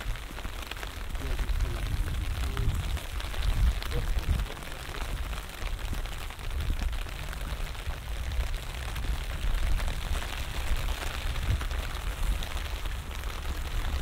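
Light rain falling steadily, with many small drops ticking, under an uneven low rumble from wind on the microphone.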